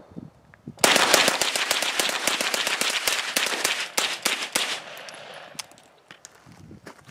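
GSG ATI MP40 semi-automatic 9mm carbine firing a rapid string of shots, starting about a second in and thinning out to a few last shots over the final couple of seconds.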